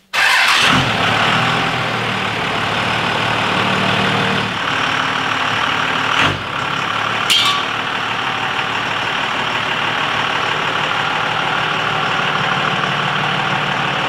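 Dodge Ram pickup's Cummins straight-six turbo-diesel engine running steadily as the truck backs out, with a single knock about six seconds in.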